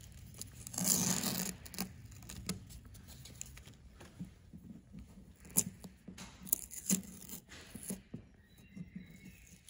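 Masking tape being peeled off teak deck planks, pulling away from fresh black seam caulk: a tearing rasp about a second in, then faint scattered crackles and ticks, with one sharper click a little past halfway.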